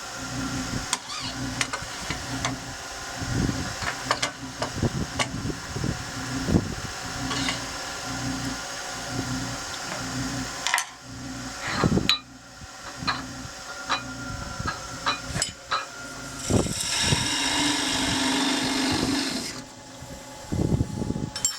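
Wood lathe spinning a pear-wood handle, its low hum pulsing steadily, with a turning tool cutting into the wood in short scrapes and knocks. A longer stretch of hissing cutting runs for about three seconds near the end.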